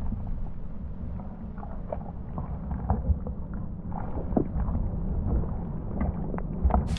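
Rubber boots stomping and splashing in a shallow muddy puddle: a run of irregular wet slaps and sloshes over a steady low rumble.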